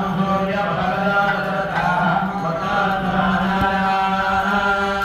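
Hindu priests chanting mantras in a steady, sustained drone, the voices holding one low note with only slight changes.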